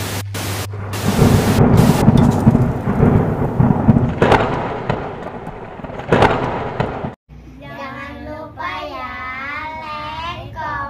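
Intro sound effect of hissing television static and low rumbling, with two sharp hits about four and six seconds in. After a brief drop to silence a little past seven seconds, young girls sing together.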